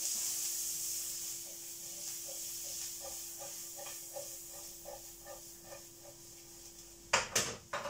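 Onions sizzling in a hot frying pan on an electric hob, the hiss strongest at first and fading. A steady hum runs underneath, and there is a brief clatter near the end.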